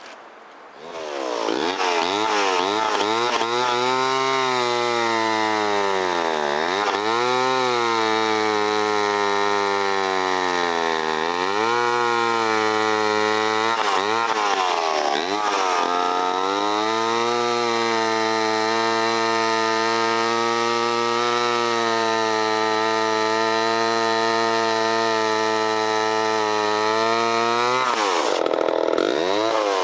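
Vintage Homelite C-7 two-stroke chainsaw throttling up about a second in and cutting through a log under its own weight. The engine pitch drops and recovers a few times, then holds steady through the long cut.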